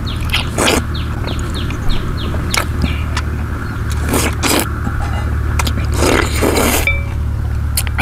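A person slurping wide rice noodles from a bowl of noodle soup, several noisy slurps with the longest about six seconds in. Behind it runs a steady low hum, and a quick run of short bird chirps is heard in the first two seconds.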